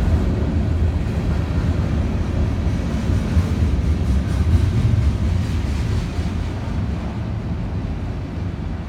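Freight cars of a CN freight train rolling past: a steady low rumble of wheels on rail that eases a little after about six seconds.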